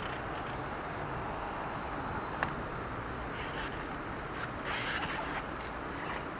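City street traffic: a steady wash of engine and tyre noise from passing cars. A single sharp click comes about two and a half seconds in, and a brief louder hiss about five seconds in.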